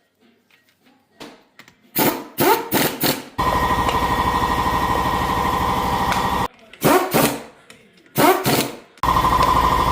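Impact wrench running lug bolts on a car wheel: a few short bursts, then two long runs of rapid, even hammering of a few seconds each.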